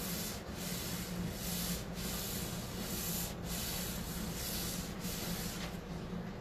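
A rag scrubbing wet chalk paint off a wooden tabletop in long rubbing strokes, with a brief break about every second and a half. The excess paint is being wiped back so it stains the wood and leaves the grain showing.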